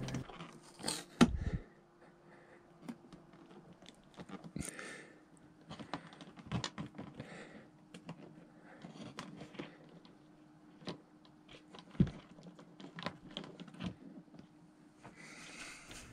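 Hands handling wiring and plastic parts inside an opened ceiling light fixture: scattered small clicks, taps and rustles, sharper about a second in and again about twelve seconds in, over a faint steady hum.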